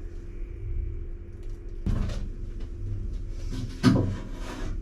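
Kitchen utensils or crockery being handled: two short knocks, the second and louder one near the end, over a steady low appliance hum.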